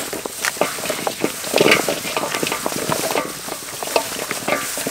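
Gloved hands mixing raw chicken feet with flour in a large metal basin: an irregular run of clicks and rustles as the feet tumble against each other and the basin.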